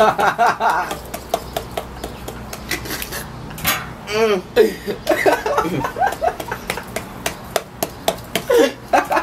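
Boys laughing in bursts, with scattered short knocks and clinks on a tabletop.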